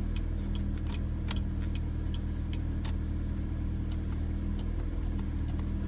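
Car idling with a steady low hum while the turn signal ticks in short sharp clicks, signalling right on a newly fitted turn signal lever under test.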